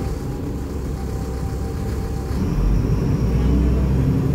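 Mercedes-Benz O500U city bus's diesel engine and Voith automatic drivetrain heard from on board while driving, a steady low rumble that grows louder about two and a half seconds in.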